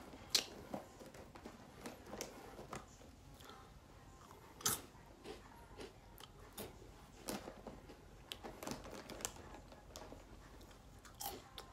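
A person chewing and biting crunchy food close to the microphone: scattered crisp crunches and mouth clicks, the loudest about half a second in and again just before five seconds in.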